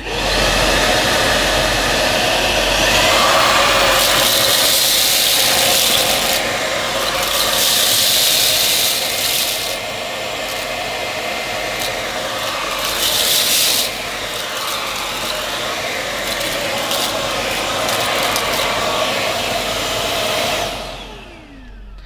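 Tineco Pure One S12 cordless stick vacuum, used handheld with its brush head, running steadily at full power in manual mode as it sucks up spilled rice, with several louder, hissier spells. It winds down with a falling whine just before the end as it is switched off.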